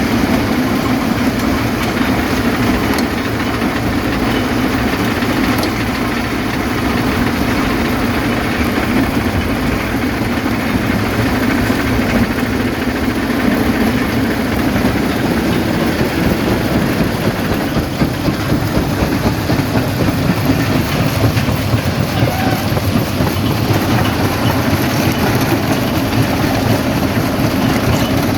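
Primary rock crusher running under load: a loud, continuous mechanical rumble with dense, irregular clatter and knocking of stone being broken.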